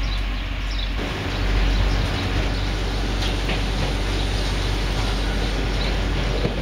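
A regional train approaching along the track: a steady rumble and hiss, which changes abruptly about a second in.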